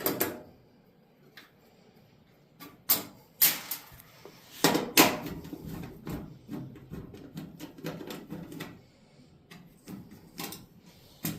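Scattered clicks and knocks of tools and sheet metal as quarter-inch screws are taken out of a Maytag dryer's cabinet and its top panel is worked loose, the loudest knocks coming about three to five seconds in.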